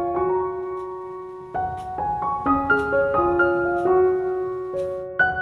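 Background piano music: soft sustained notes and chords that fade, with a new phrase starting about a second and a half in.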